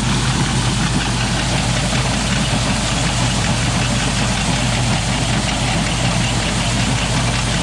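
John Deere 4230 tractor's six-cylinder diesel running steadily while driving a grain bin unload auger that had been frozen and is now turning.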